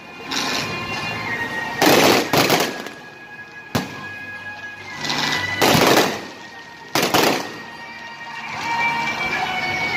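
Aerial fireworks bursting overhead: a run of loud bangs a second or two apart, most trailing a short crackling rush, with one sharp single crack near the middle. Music plays underneath, and near the end the bangs stop and the music carries on.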